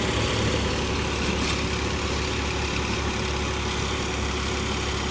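Massey Ferguson 135 tractor's diesel engine running at a steady speed, driving a small thresher, with an even low hum and a thin steady tone above it.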